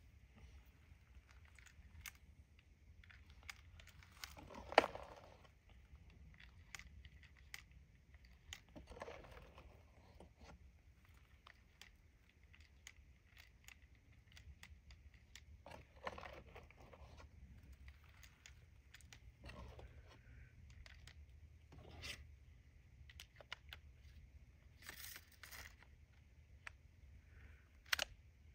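Small handling clicks and rustles of a Remington Nylon 66 .22 rimfire rifle being reloaded: .22 LR cartridges fed into the tube magazine through the buttstock, with the loudest click about five seconds in and another near the end.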